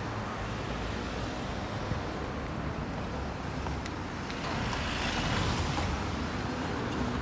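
City street traffic noise: a steady hum of cars running, growing louder a little past halfway through.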